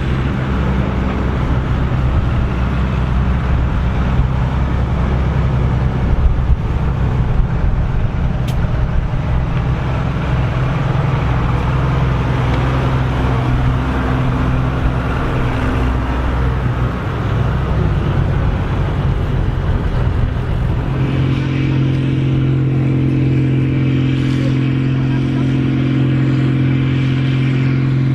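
Case IH 1455 XL tractor's diesel engine running steadily at working revs; about two-thirds of the way through the engine note changes to a smoother, even tone.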